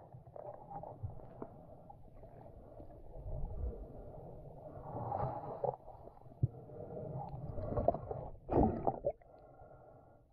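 Muffled water sloshing and gurgling heard underwater, the sound dull with little treble. Louder gurgling swells come about five seconds in and again near the end, with a few faint knocks between.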